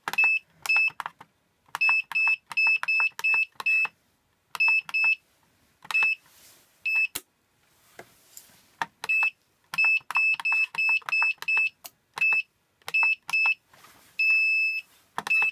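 Standalone access-control keypad beeping as its buttons are pressed, one short high beep with a click per key, in quick runs, while a programming code is keyed in to delete the enrolled cards and tags. A single longer beep near the end confirms the entry.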